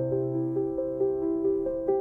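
Background music: soft piano or electric-piano notes over a held bass note.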